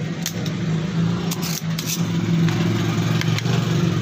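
Sharp clicks and snaps of a spring-loaded desoldering pump as solder is sucked off an IC's pins, several in a row with the loudest cluster near the middle, over a steady low hum.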